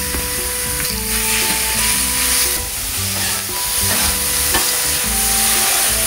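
Yakisoba noodles sizzling steadily as they fry, under background music.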